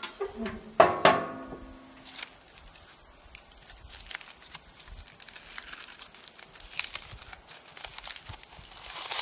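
Metal gas-grill lid banging shut about a second in, with a brief ringing, followed by aluminium foil crinkling and rustling as a hot foil packet is unfolded by hand.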